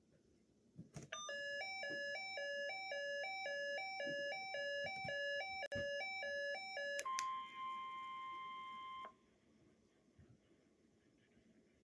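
A weather alert radio's electronic alarm beeping, switching back and forth between two notes about twice a second for roughly six seconds. It then changes to the single steady NOAA Weather Radio warning alarm tone, held for about two seconds before it cuts off. This is a weekly test of the weather radio alert.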